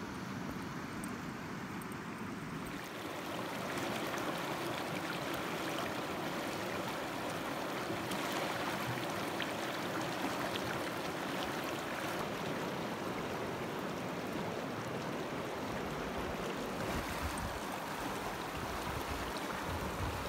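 Mountain river rushing over boulders: a steady wash of fast-flowing water, a little louder about three seconds in.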